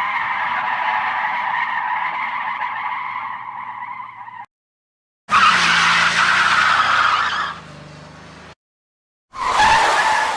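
Car tyre skid sound effects, three in a row with dead silent gaps between them. A long tyre squeal fades out about four and a half seconds in. A second, louder screech starts about five seconds in and tails off quieter. A third squeal begins near the end.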